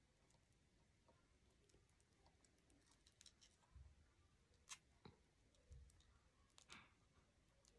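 Faint, scattered clicks of small beads knocking together and against a plastic bead box as beads are strung and twisted into a loop, over near silence. A couple of the clicks are a little louder, about halfway through and again near the end.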